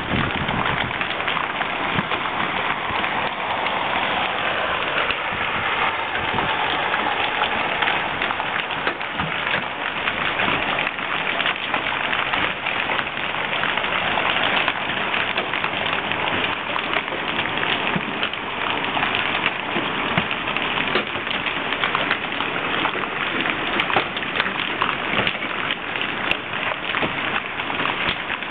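Hailstorm: hailstones and rain pelting the ground, a dense steady patter with many sharp individual hits.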